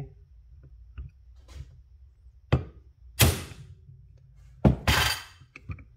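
Hammer striking a hand impact driver set in a stuck carburetor screw: a couple of light taps, then four sharp metal strikes in the second half, which break the screw loose.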